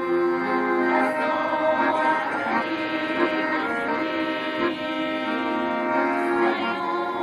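Instrumental music with long held chords, without singing.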